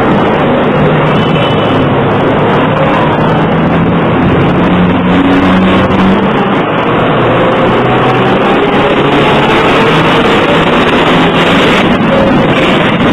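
Busy city street traffic: cars and engines running past in a dense, steady din, with a low engine hum that rises and falls.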